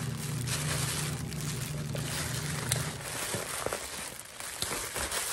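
Plastic packaging rustling and crinkling as hands tear into and handle a parcel wrapper, with scattered small crackles. A low steady hum runs under it for the first three seconds or so, then stops.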